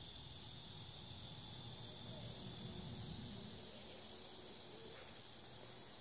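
A steady, high-pitched insect chorus, an unbroken trilling drone with no let-up.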